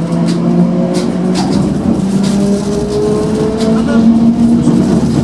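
Old electric suburban train running, heard from inside the carriage: a steady motor hum with a whine that slowly rises in pitch, and scattered clicks and rattles.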